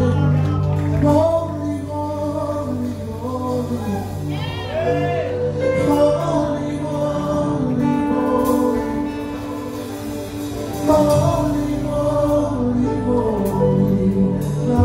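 Live gospel praise music: voices singing a worship song over a band of bass guitar, acoustic guitar and drum kit.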